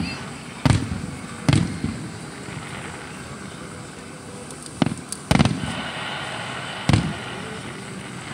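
Aerial fireworks shells bursting: about six sharp booms at uneven intervals, each trailing off in a brief echo, with a lull of a few seconds between the first three and the last three.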